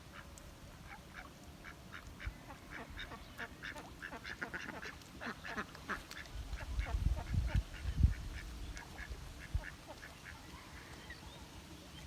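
A rapid series of short animal calls, many in quick succession, densest in the middle, with low rumbling thuds about seven to eight seconds in.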